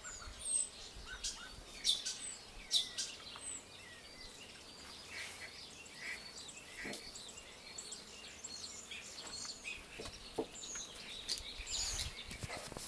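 Several small birds chirping and calling, short high notes overlapping one another, with a few louder calls in the first three seconds.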